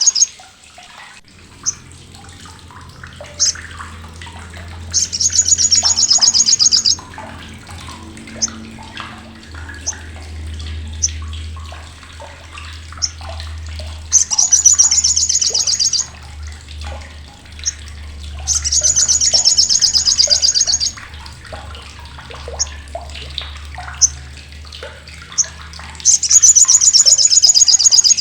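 Olive-backed sunbird (sogok ontong) giving its harsh, sharp chattering call: four loud, high-pitched, rapid chatters of about two seconds each, with short single chips in between.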